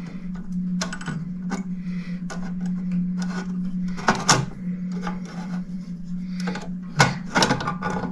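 Irregular clicks, taps and knocks of metal clock parts being handled as a French crystal regulator clock's movement is worked loose and lifted out of its case, with the loudest knocks about four seconds in and near seven seconds. A steady low hum runs underneath.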